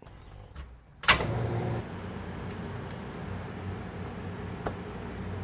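The main disconnect switch of a Sharp 2412 CNC vertical machining center is thrown on with a sharp clack about a second in. The machine's electrics then hum steadily as it powers up, with a single light click near the end.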